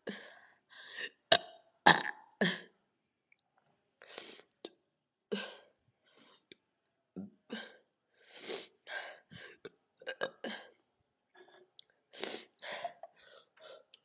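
A woman's short burps and throat noises as she strains to work up a big burp: a run of about twenty brief, irregular sounds with pauses between them, loudest in the first couple of seconds and again near the end.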